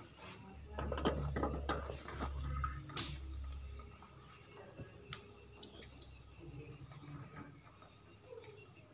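A high, steady insect trill that breaks off and resumes a few times, over rattling and knocking of a wire pet cage and a low handling rumble in the first few seconds, with sharp clicks about three and five seconds in.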